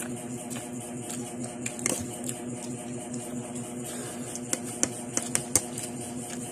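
Scattered light clicks of a metal fork against a plate as a toddler is fed, most of them in a quick cluster in the second half, over a steady low hum.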